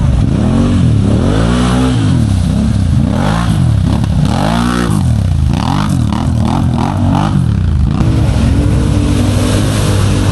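ATV engine revving up and down over and over, with a quick run of short throttle blips about six seconds in, then settling to a steady run near the end.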